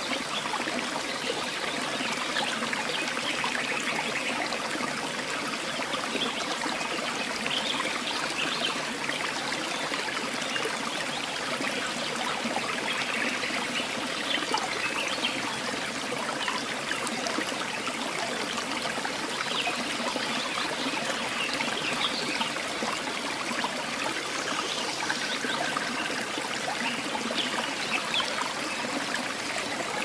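Running water, a steady even rush with small splashing and trickling throughout.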